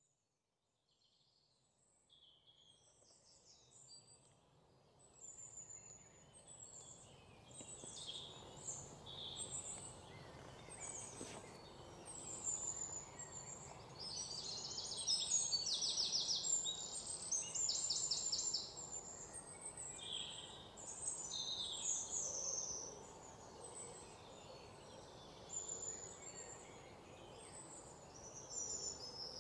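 Many birds chirping and calling, with a few fast trills, over a steady background hiss. It fades in from silence over the first several seconds.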